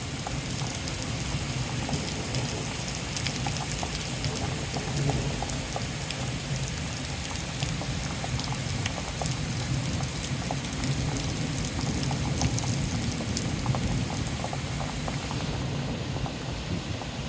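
Steady rain falling in a thunderstorm, many drops ticking on a surface over a steady low hum.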